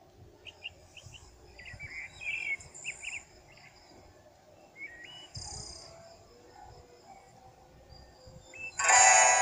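Faint bird chirps: a scatter of short high chirps in the first three seconds and one more about five seconds in, over low background noise. Loud music with singing cuts back in near the end.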